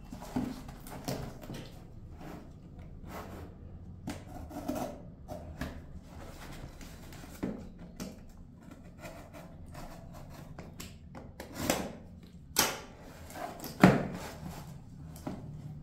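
Handling noise from a Samsung Galaxy S24 Ultra's cardboard box and packaging being opened: rustling and sliding, broken by scattered taps and knocks. The loudest knock comes near the end.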